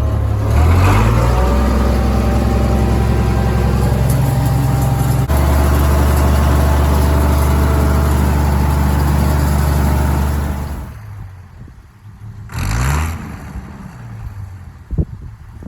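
International Harvester 826 Hydro tractor engine revving up about half a second in and then running steadily at high throttle while pulling a hay rake. At about ten and a half seconds the engine sound drops off sharply to a much quieter level, with a brief rising whir near the end.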